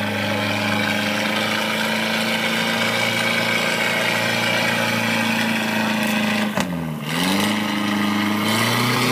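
Engine of an off-road Jeep running steadily while the vehicle is driven nearly submerged through deep water. About six and a half seconds in the revs sag briefly, then climb back up and run a little higher near the end.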